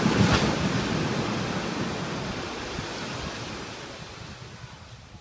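An ocean wave breaking: a loud rush of surf right at the start that slowly dies away over several seconds.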